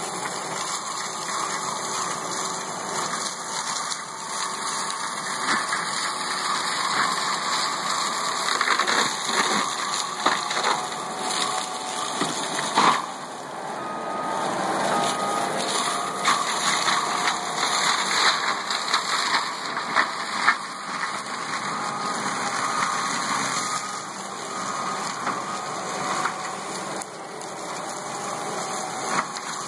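Forestry mulching mower running steadily as its spinning drum grinds through buckthorn seedlings, with sharp cracks as woody stems are shredded.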